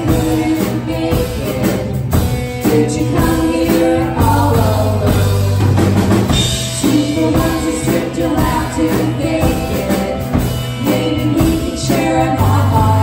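Live rock band playing: electric guitar, bass guitar and drum kit under sung vocals.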